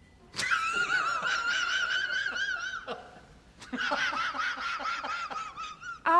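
A woman's very high-pitched, quavering vocal squeal, laugh-like, in two long stretches of about two and a half seconds each with a fast, regular wobble in pitch.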